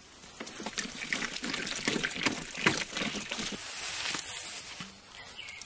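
Water poured from a plastic bottle over a whole raw chicken to rinse it, trickling and splashing unevenly; it stops after about three and a half seconds.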